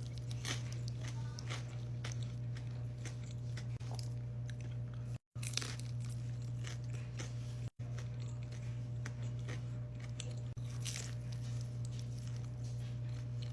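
Close-up crunching bites and chewing of crispy fried veggie tacos, many short sharp crunches in irregular succession. A steady low hum runs underneath, and the sound cuts out briefly twice.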